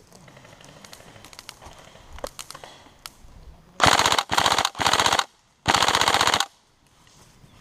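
Airsoft electric gun, most likely the Tokyo Marui SCAR-H, firing four short full-auto bursts of rapid clicking shots, close and loud, about four seconds in. A few faint clicks come before them.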